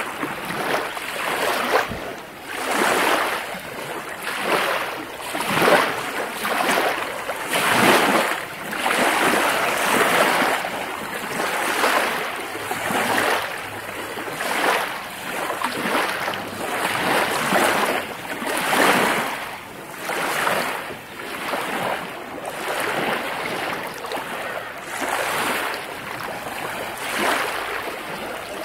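Small lake waves washing and splashing in repeated surges, about one a second.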